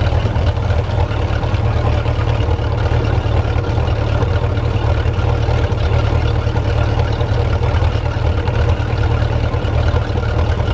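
MerCruiser sterndrive boat engine idling steadily out of the water, its cooling system fed from a pool by a sump pump as it warms up so the thermostat opens.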